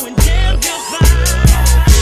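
Hip hop music with a deep bass line, a regular drum beat and a vocal line over it.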